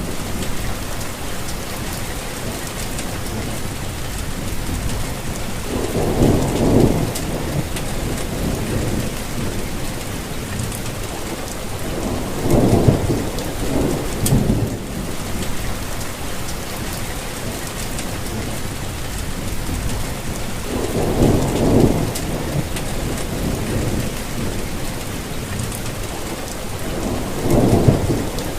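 Steady rainfall hissing evenly, with a low rumble swelling up and fading four times, about every six to eight seconds.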